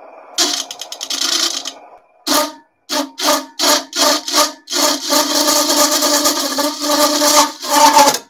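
A bowl gouge cutting the outer rim of a spinning cedar bowl on a small JET benchtop wood lathe: a loud scraping, rushing cut in several passes. First a long pass, then a run of short strokes about three a second, then a long continuous cut that peaks and cuts off suddenly near the end.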